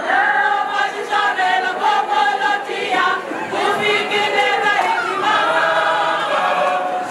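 Large mixed choir of women's and men's voices singing together.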